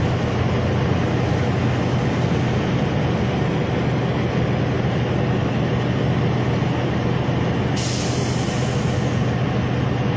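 Semi-truck engines idling, a steady drone with a constant low hum, and a brief hiss about eight seconds in lasting a second or so.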